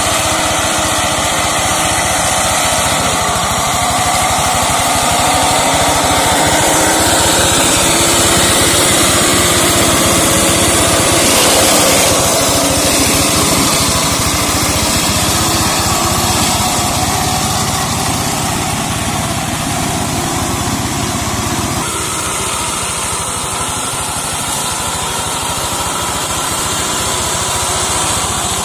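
Single-cylinder diesel engine of a two-wheel hand tractor converted into a mower, running steadily under load while its cutter chops through undergrowth and brush. The sound shifts a little about 12 and 22 seconds in.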